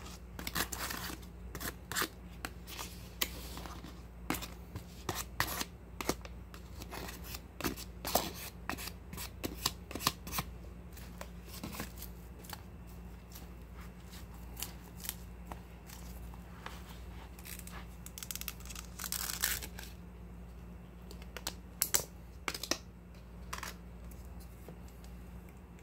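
Plastic takeout containers, lids and a spoon being handled: a run of sharp clicks, taps and rustles, thick for the first dozen seconds and then sparser, over a steady low hum.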